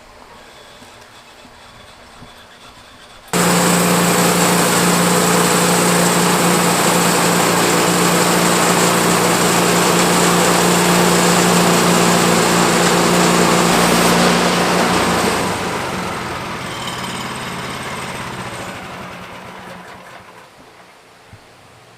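Portable band sawmill's engine and blade running at a steady high speed, cutting in abruptly a few seconds in. It then winds down and fades away over several seconds.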